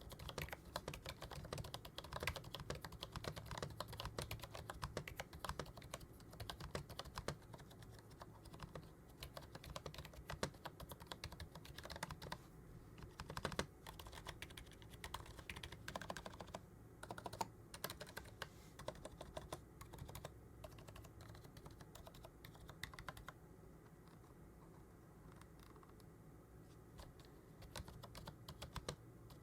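Typing on an XVX K98 silent membrane keyboard: a quiet, rapid run of keystrokes, thinning out for a few seconds in the later part.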